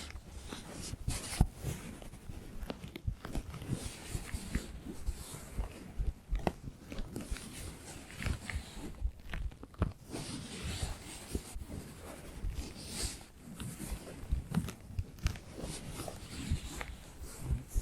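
Fingertips tapping and finger pads scratching, with quick irregular taps over continuous scratchy rubbing.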